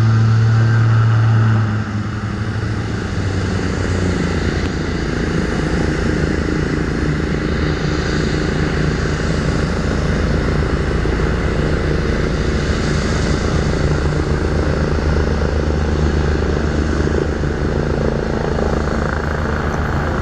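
Agusta A109 helicopter's rotors and turbine engines running steadily as it approaches and comes down to a low hover over the runway, a continuous low hum with a strong deep drone in the first couple of seconds.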